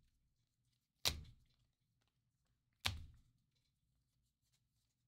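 Two sharp snaps of baseball cards being handled, one about a second in and one near three seconds, as cards are flipped through a hand-held stack; otherwise nearly silent.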